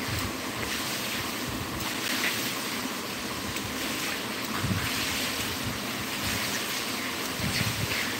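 Steady rushing noise, like air or a fan blowing, with uneven low rumbles now and then.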